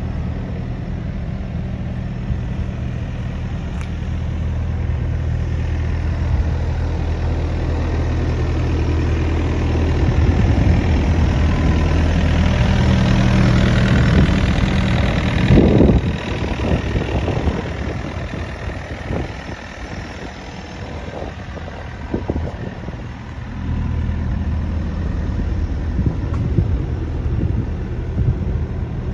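Doosan DX85R 8.5-tonne excavator's diesel engine idling steadily, growing louder about halfway through as the microphone passes close by the engine at the rear. For several seconds after, uneven low rumbles partly cover the idle before it steadies again.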